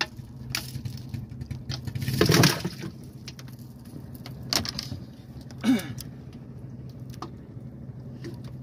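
Small boat engine running steadily at low revs, with scattered light metallic clicks as a metal spoon lure is handled with pliers, and a louder rustle about two seconds in.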